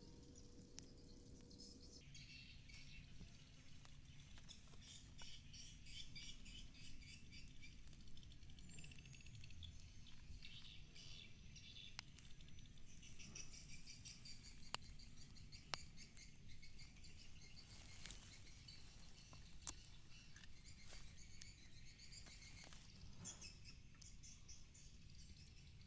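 Faint insects chirping in a rapid pulsing trill, with a few faint clicks from hands handling a small bottle and a mesh bag.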